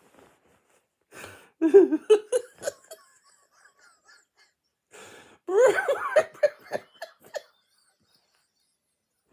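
A man laughing in two short bursts of choppy, breathy laughter, about a second in and again about five seconds in.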